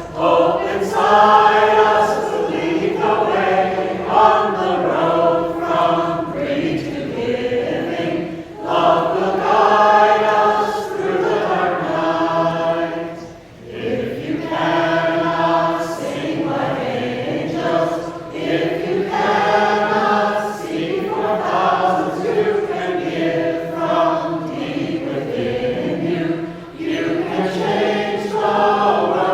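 A small vocal group singing a song together in harmony, the phrases running on with a short break about 13 seconds in.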